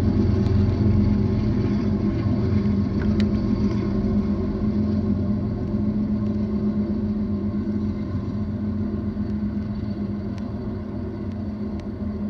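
BNSF intermodal freight train's container cars rolling past: a steady rumble of wheels on rail with a low steady hum, slowly getting quieter.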